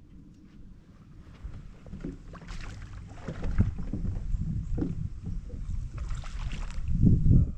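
Water splashing and sloshing in irregular bursts, with rumble, building from about two seconds in and loudest just before it cuts off suddenly.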